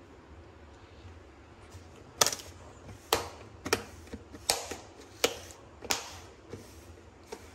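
Plastic lid of an ice cream tub snapping shut as a hand presses it down around the rim: a series of about eight sharp clicks, a little under one a second, starting about two seconds in.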